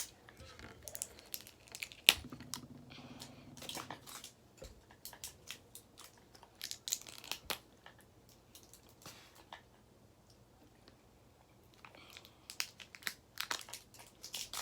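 Plastic wrapper and sticker being peeled and crinkled off a toy package: irregular crackles and crinkles, the sharpest about two seconds in, with a quieter lull about two-thirds of the way through.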